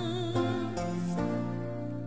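Soft, slow music of held chords that change a few times.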